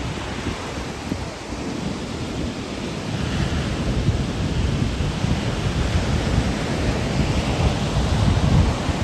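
Ocean surf washing on the shore, its hiss swelling twice, with wind buffeting the microphone in low gusty rumbles.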